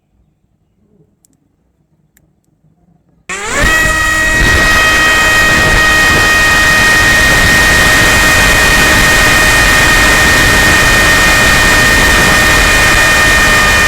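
Motor and propeller of a homemade RC plane running at steady high throttle, heard through the onboard mini action camera's microphone: a strong whine over a rushing noise. It starts abruptly about three seconds in, and the pitch drops slightly near the end.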